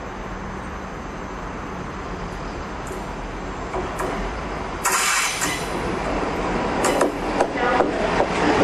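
Class 66 diesel-electric freight locomotive approaching with a container train, its engine rumble growing louder as it nears. Sharp high-pitched squeals from the wheels on the curved track start about five seconds in and come again near the end.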